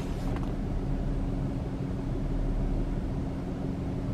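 Steady low hum of a running car heard inside its cabin, an Infiniti G37, with a constant low tone in it. A couple of soft clicks come near the start.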